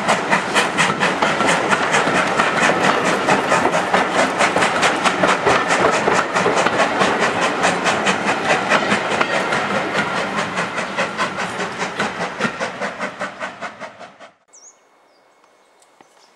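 Ivatt Class 2MT steam locomotive no. 46512 working, its two-cylinder exhaust a fast, even beat of chuffs over steam hiss. It fades over the last few seconds and cuts off abruptly about fourteen seconds in.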